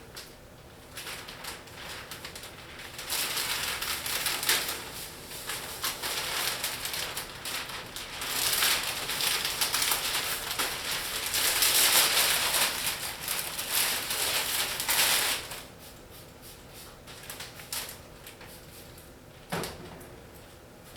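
Rustling and hissing as the protective liner is peeled off a sheet of window film and the film is sprayed with solution. It is loudest from about 3 to 15 seconds in, with a short knock near the end.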